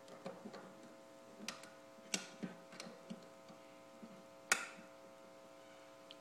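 Scattered light clicks and knocks of a hand working a turntable's tonearm and controls, the sharpest about four and a half seconds in, over a faint steady hum.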